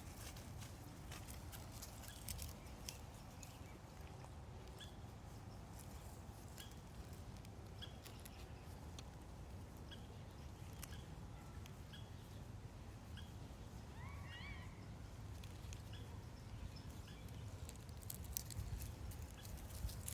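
Faint rustling and soft clicks of hands rubbing a Shiba Inu's fur, over a low steady rumble. Scattered short high chirps run through it, with one wavering squeaky call about two-thirds of the way through.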